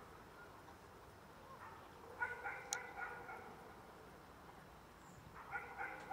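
Dog barking in the distance: two quick runs of yaps, about two seconds in and again near the end, with one sharp click in between.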